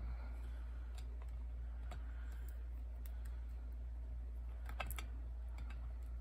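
Light, scattered plastic clicks and taps as small plastic dolls are picked up and set down on a metal tray, with a quick cluster of clicks about five seconds in. A steady low hum sits underneath.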